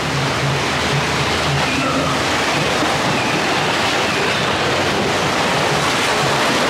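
Steady loud rushing noise, with faint voices underneath in the first couple of seconds.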